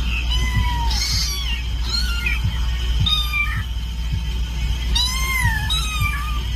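A kitten mewing repeatedly: about six high-pitched, bending mews, over a steady low hum.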